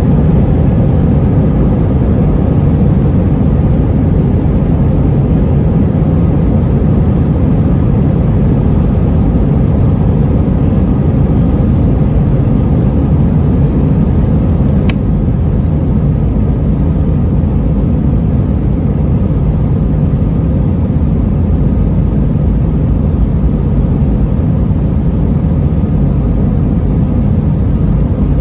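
Airbus A321 engine and airflow noise heard from inside the cabin: a loud, even rumble that holds steady throughout, with one brief click about halfway through.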